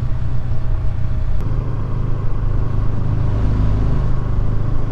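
Riding sound of a KTM 250 Duke motorcycle: its single-cylinder engine running at a steady speed under a loud, even low rumble of wind on the rider's microphone.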